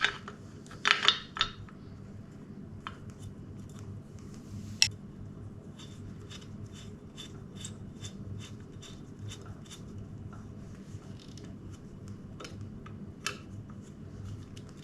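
Metal clicks and taps of hand tools working on motorcycle parts. In the middle comes a run of evenly spaced clicks, about three a second, over a steady low hum.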